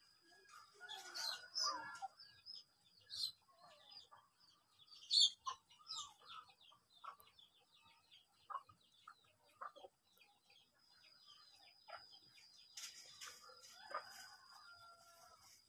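Chickens clucking, with short bird chirps in between, and a steady high-pitched tone running underneath.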